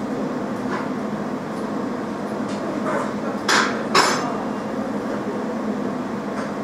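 Jewellery laser welding machine running steadily through its start-up self-check and capacitor charging, a constant machine hum. Two short sharp noises come about half a second apart, a little past halfway.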